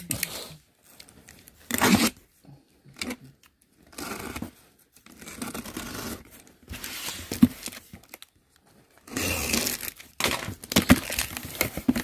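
Packaging being torn and crinkled as a box is opened, in several separate bursts with short pauses between.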